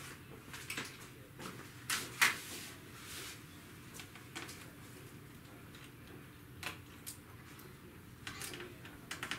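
Scattered light clicks and knocks of a laptop and its small parts being handled, with the sharpest click about two seconds in and a few more later on.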